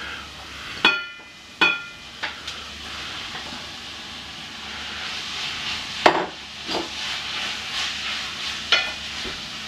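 Shredded salt cod going into a pot of hot oil with fried onion and garlic and sizzling, stirred with a wooden spoon. Two ringing clinks about a second in as the fish is scraped from the bowl, and a few sharp knocks of the spoon against the pot later on.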